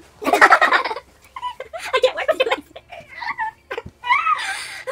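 Girls laughing hard in fits of giggling, ending in a high-pitched squealing laugh near the end.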